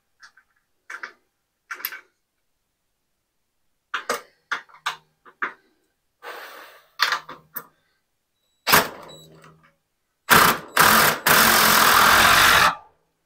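Cordless drill driving a fastener into the overhead beam and rafter: a few short trigger bursts, then a loud steady run for about two seconds near the end. Scattered knocks and clicks of handling the tool and beam come first.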